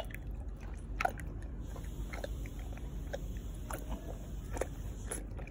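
A toothless dog lapping milk and gumming soaked kibble from a clay bowl: irregular wet clicks and smacks of its tongue and jaws, two or three a second.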